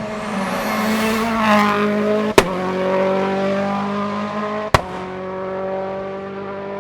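Hillclimb race car engine accelerating hard, shifting up twice about two seconds apart; each upshift is marked by a sharp crack and a drop in engine pitch.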